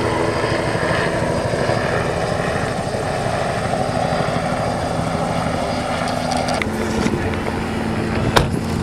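Steady engine drone with rushing noise, its hum shifting about two thirds of the way in, and one sharp click near the end.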